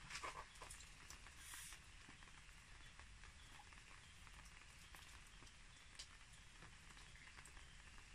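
Near silence: faint background hiss with a few soft ticks, one a little more distinct about six seconds in.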